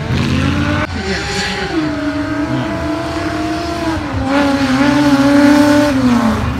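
A 4x4 offroad racing vehicle's engine revving hard under throttle, its pitch rising and falling as the driver works the throttle and gears. The sound breaks off and restarts about a second in, is loudest five to six seconds in, then the pitch falls away near the end.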